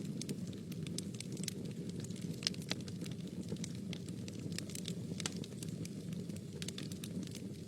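Wood fire in a fireplace burning with a steady low rumble and frequent irregular crackles and pops.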